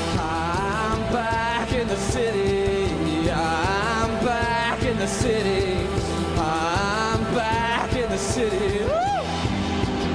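Live psychedelic pop-rock band playing: electric guitar, bass guitar and drums, with a male lead vocal sung in phrases over it.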